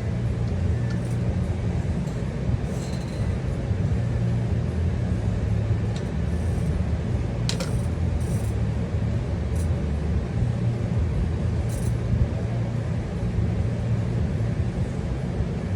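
A steady low mechanical hum runs throughout, with a few light clicks of small paintball regulator parts being handled, scattered through the middle.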